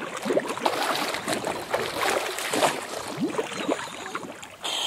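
Water splashing and sloshing irregularly around a scuba diver swimming face-down at the surface of a pond.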